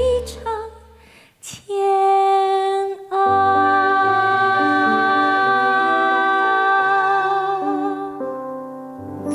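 Closing instrumental bars of a slow stage-musical ballad: a sung phrase trails off at the start, then after a brief hush a keyboard plays long held chords over a shifting bass line.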